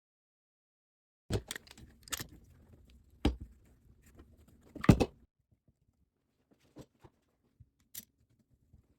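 A run of sharp knocks and clacks from workshop disassembly of wooden vise parts and hardware being handled, the loudest about five seconds in, then a few fainter clicks.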